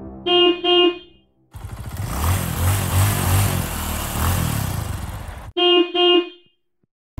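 A car horn toots twice, then a motor vehicle's engine runs for about four seconds, then the horn toots twice more.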